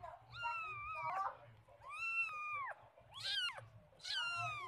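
A cat meowing over and over: four drawn-out meows, each under a second long, with the pitch arching up and falling away in each.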